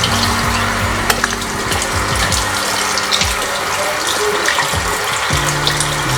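Steady rush of running water, like a tap left running, with a few faint clicks, under background music of slow sustained low notes that shift chord a few times near the end.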